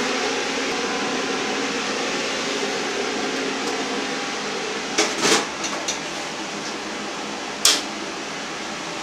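Steady electric fan noise with a faint steady hum, easing slightly after about four seconds. It is joined by a few sharp knocks, two about five seconds in and one near eight seconds.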